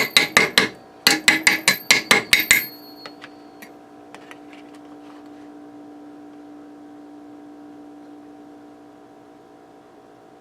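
Fast, even knocking on a metal bundt cake pan, about four or five knocks a second with a metallic ring, while a stuck cake is worked loose. The knocking pauses briefly, resumes and stops about two and a half seconds in, leaving a faint steady hum.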